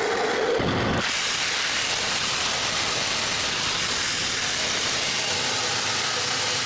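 Wood lathe running while a turning tool cuts a spinning piece of cedar, a steady shaving hiss. A low hum drops away about a second in and the hiss fills out.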